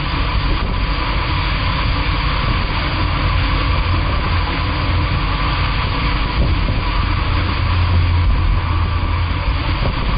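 Center-console boat running at speed: the Johnson 200 outboard's steady drone mixed with wind and the rush of water from the hull and wake.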